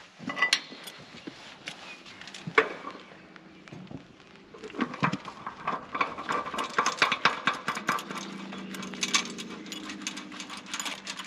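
Metal clinking and rattling of propane railcar valve fittings as a plug is threaded in by hand, with scattered clicks at first and a dense run of quick ticks from about halfway.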